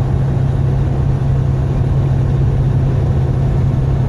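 Steady engine and road noise inside a moving truck's cab, a constant low hum with a rushing background.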